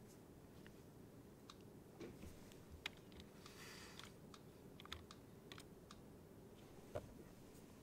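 Faint, scattered clicks of a computer keyboard and mouse, about eight over several seconds, over a low steady room hum, with a brief soft rustle midway.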